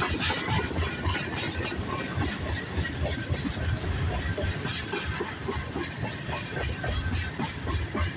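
Freight train of covered hoppers and tank cars rolling past close by: a steady rumble of steel wheels on rail, with irregular clicking and clanking from the wheels and cars.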